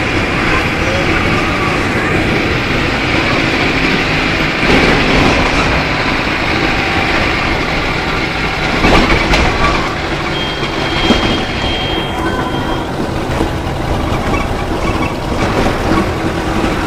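Mercedes-Benz OF-1417 bus's OM-904LA four-cylinder turbodiesel running steadily, with body rattles and a couple of knocks about five and nine seconds in.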